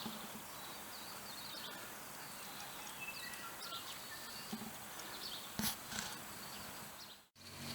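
Outdoor background noise, a faint steady hiss with a few faint high chirps near the middle and a couple of short knocks about five and a half seconds in.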